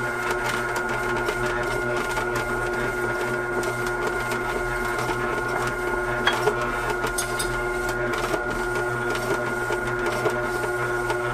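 Ultra wet grinder's motor running steadily, turning its kneading attachment through wheat dough, with a few faint light knocks as the dough moves around the container.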